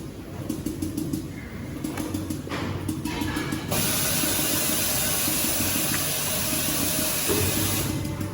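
A low machine rumble, then about halfway through a loud, steady hiss like rushing air starts suddenly and cuts off near the end.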